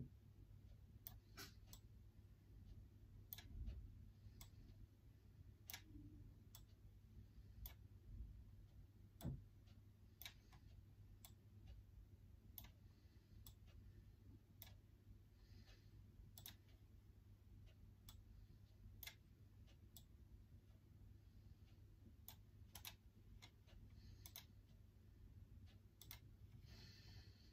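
Faint, irregular clicks of typing on a laptop keyboard, coming in short clusters, over a low steady hum.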